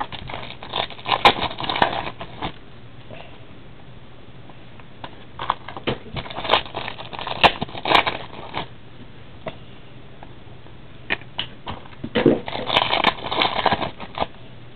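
Crinkling and tearing of trading-card pack wrappers as packs are opened and the cards handled, in three crackly bursts: about a second in, in the middle, and near the end.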